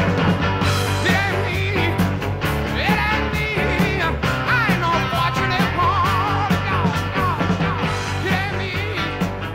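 Rock music: a wavering lead melody over steady bass and drums.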